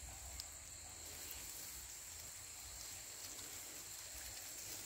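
Faint outdoor ambience: a steady high-pitched insect drone, with light wet rustling and a few faint ticks as a cast net is drawn out of pond water onto the bank.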